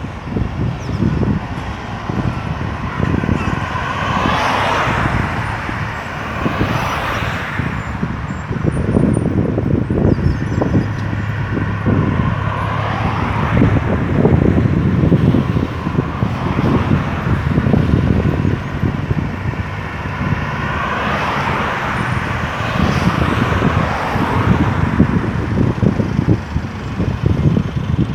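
Steady highway traffic: vehicles passing one after another with a constant low rumble, the sound swelling and fading as each goes by, with two especially clear pass-bys, a few seconds in and again near the end.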